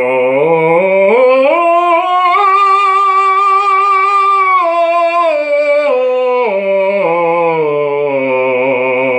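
Operatic bass voice vocalizing a scale. It steps up to a high note held with vibrato for about two seconds, then steps back down to a low note that it holds to the end. This demonstrates the 'principle of the open door': the jaw opens more as the voice climbs and closes again on the way down.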